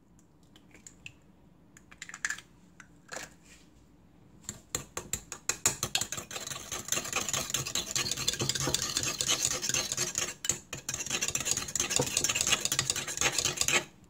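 Two raw eggs being beaten in a ceramic bowl: the utensil clicks rapidly against the bowl. A few light taps at first turn into fast, steady beating after about four seconds, with a brief pause about two-thirds of the way through.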